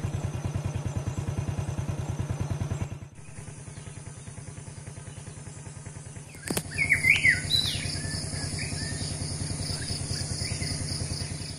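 An engine running with a steady rapid pulse, with birds chirping briefly about six and a half seconds in, just after a sharp click. A steady high whine joins in about three seconds in.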